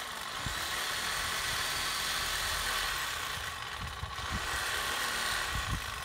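Power saw running steadily while cutting through a tree limb.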